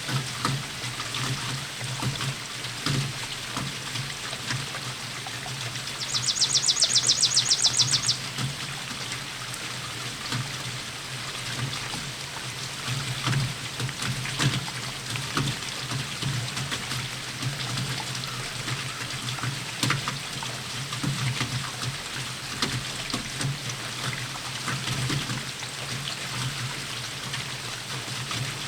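Steady rain falling, with drips and pattering drops close by. About six seconds in, a high rapid trill of roughly a dozen pulses a second sounds over the rain for about two seconds.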